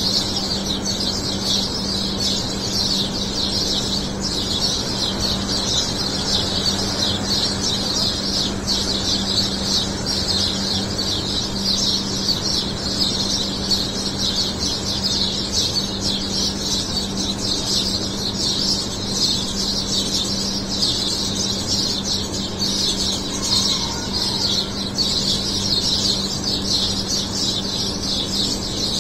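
Dawn chorus of many small birds chirping continuously in the trees, a dense, high-pitched chatter with no breaks, over a steady low hum.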